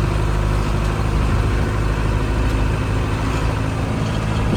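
Mercedes-Benz 709 delivery truck's diesel engine running steadily as the truck drives along.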